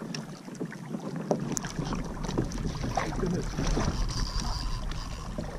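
Small waves lapping and splashing against a kayak hull at the waterline, with wind buffeting the microphone from about a second and a half in.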